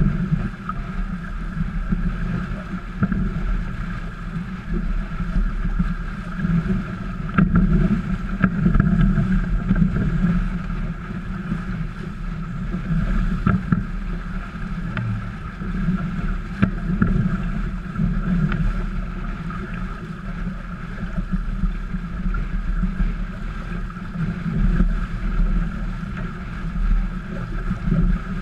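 Wind buffeting the microphone over water rushing and splashing past a trimaran's hull under sail, a low gusty rumble that rises and falls with the gusts.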